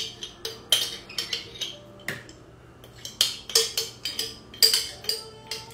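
A utensil scraping and knocking applesauce out of a glass jar into a bowl: irregular clinks and taps on the glass, several a second, with a short pause a little past the middle.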